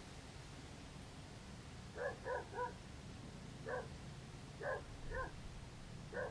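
A small dog yapping: about seven short, high-pitched barks starting about two seconds in, the first three in quick succession and the rest spaced out.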